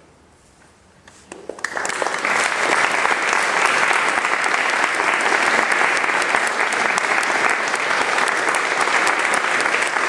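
Audience applauding. It starts about a second and a half in after a quiet moment, swells quickly, then stays steady.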